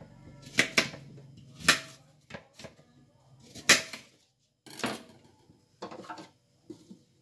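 A row of sharp, separate clicks and knocks, about eight with short gaps between: a knife clicking against a plate of cut beetroot and green apple, the knife set down on the counter, and the plastic top of the juicer handled near the end.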